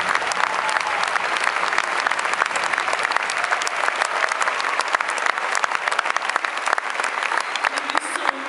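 Large theatre audience applauding: dense, steady clapping all around, with single claps nearby standing out.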